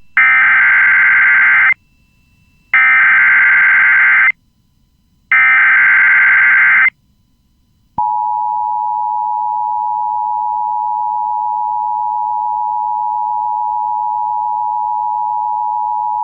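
Emergency Alert System header for a Civil Emergency Message: three identical bursts of digital SAME data, each about a second and a half long with short gaps between, then about eight seconds in the steady two-tone EAS attention signal starts and holds. The sequence marks the start of a new emergency alert.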